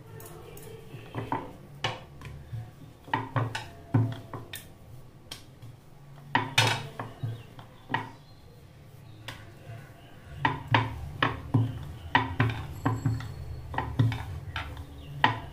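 A wooden rolling pin rolls dough on a wooden board: a low rolling rumble with irregular wood-on-wood knocks and clacks. It stops for about two seconds midway, then starts again with quicker, denser knocks.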